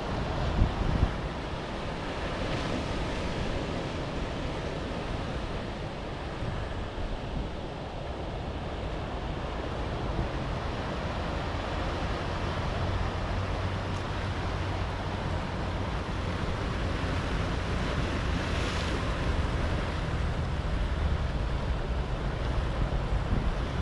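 Waves breaking and washing over a rocky shoreline, with wind rumbling on the microphone. A louder wash comes about two or three seconds in and another about three-quarters of the way through.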